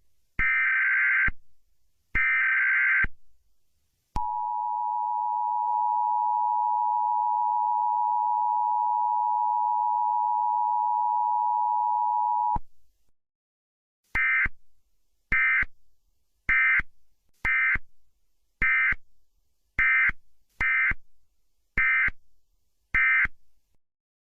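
EAS-style alert signal: the last two of three SAME header data bursts, each a second-long screech, then the two-tone attention signal held steady for about eight seconds. After a short gap comes a run of nine shorter data bursts at uneven spacing.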